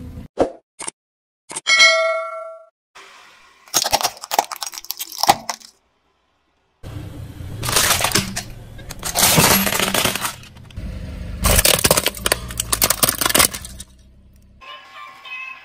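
Plastic toys cracking and crunching under a car tyre, in several separate bursts with short silent gaps between them, the later ones over a low rumble. About two seconds in comes a brief ringing tone with several pitches.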